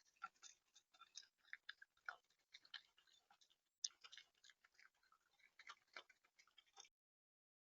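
Faint, irregular quick ticks and cracks, several a second, of a bird pecking and cracking seed at the feeder close to the camera's microphone. They cut off abruptly near the end.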